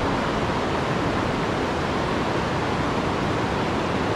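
Steady, even rush of a fast, shallow river running over rocky riffles close to the microphone.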